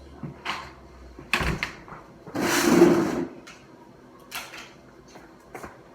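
Handling noises in a workshop: a few scattered knocks and clatters, with a louder scraping rush lasting about a second near the middle.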